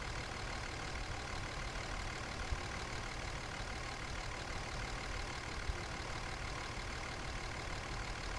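A faint steady mechanical hum, with a couple of faint clicks from plastic push-in retainers being pried out of a truck's plastic wheel-well liner.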